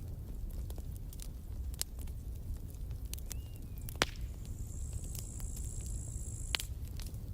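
Campfire burning: scattered sharp crackles and pops over a low rumble, with one louder pop about four seconds in. A thin high-pitched tone sounds for about two seconds after that pop.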